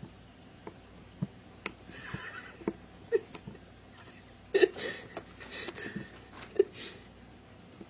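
A kitten's few brief, squeaky mews, the loudest about four and a half seconds in, among scattered light clicks and rustling handling noises.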